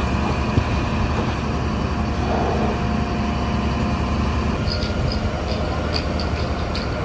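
Fire engines running their pumps steadily under the hiss of water spraying from hoses, with a few light high clicks near the end.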